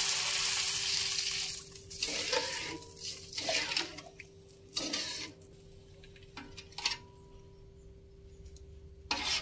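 Water poured into hot oil in an aluminium wok sizzles loudly and dies away after about a second and a half. A metal spoon then stirs and scrapes through the broth in the wok, with a few sharp knocks of metal on the pan.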